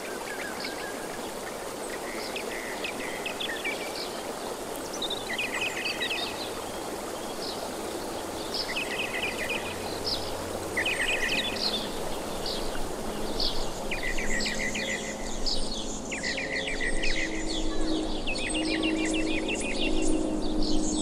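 Small birds chirping and singing in many short trills over a steady rushing background noise; a faint low hum joins near the end.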